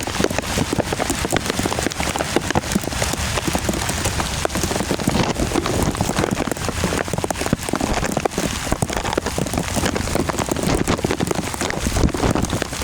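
Heavy rain falling steadily, with a dense stream of close drop hits on a surface.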